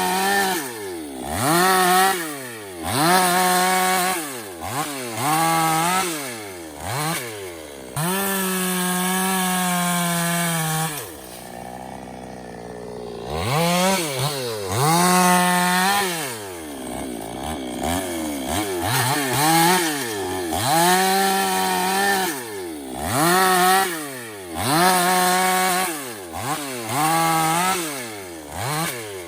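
Petrol Stihl chainsaw engine being revved up and down over and over, every second or two. A longer held rev comes about a third of the way in, then it drops briefly to idle before the revving starts again.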